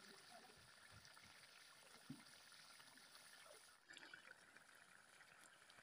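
Faint bubbling of fish curry simmering in a steel kadai over a wood fire, with a few soft pops.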